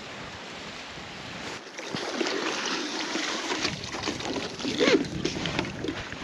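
Water sloshing and splashing with irregular knocks, starting about two seconds in after an even hiss.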